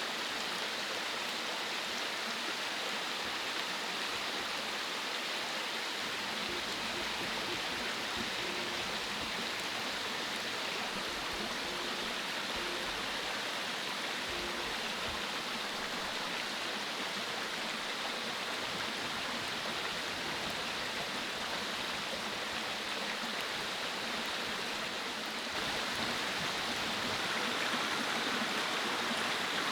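Mountain stream flowing over rocks: a steady rush of water that grows a little louder about 25 seconds in.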